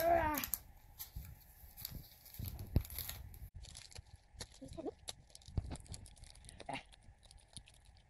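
A small cardboard mystery pin box being opened and the sealed black pouch inside pulled out and torn at: scattered rustling, crinkling and tearing. A short pitched sound falling in pitch comes right at the start.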